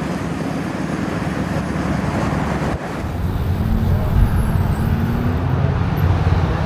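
Car engine running on the road with steady traffic and road noise; about halfway through, an engine's note climbs slowly as it speeds up.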